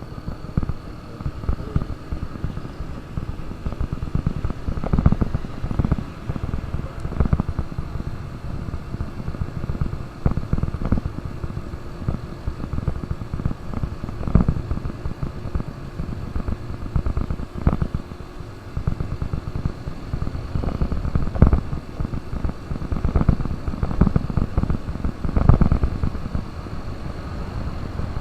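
KTM RC200 single-cylinder motorcycle engine running on the move, its sound broken by irregular gusts of wind buffeting on the microphone.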